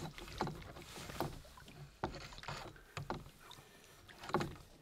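A few faint, scattered splashes and knocks at the side of a canoe while a hooked lake trout is being brought in to the landing net; the loudest comes near the end.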